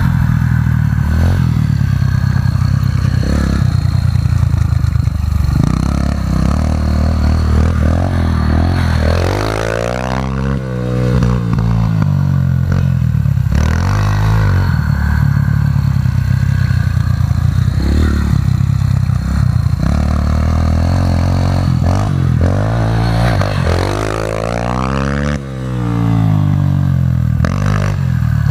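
Pit bike engines revving and easing off as riders ride a dirt-track turn; the engine pitch sweeps up and down about nine seconds in and again near the end.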